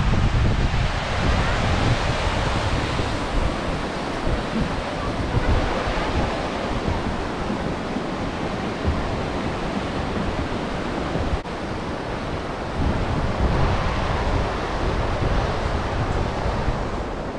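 Steady rushing of a shallow, rocky mountain stream, mixed with wind rumbling on the microphone.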